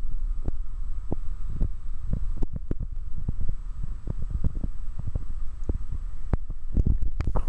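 Wind buffeting the microphone in irregular low thumps and rumble, over the steady noise of road traffic at a junction.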